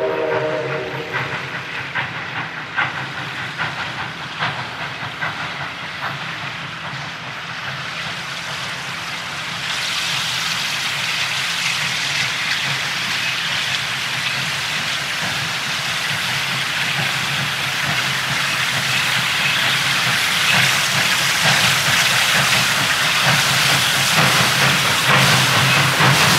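Steam locomotive running: a chord whistle cuts off about a second in, then a run of light clicks, and from about ten seconds the hiss of steam builds and grows steadily louder over a low rumble, as from a locomotive drawing nearer.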